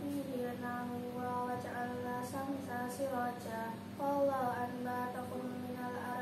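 A girl's voice reciting the Qur'an in melodic tajwid chant, holding long ornamented notes, with a short breath about four seconds in before the next phrase. A faint steady hum sits underneath.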